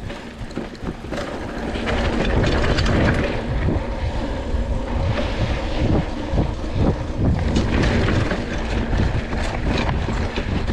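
Mountain bike ridden fast on a dirt trail: wind buffeting the microphone, tyres rolling over the dirt, and the bike knocking and rattling over bumps, growing louder about two seconds in.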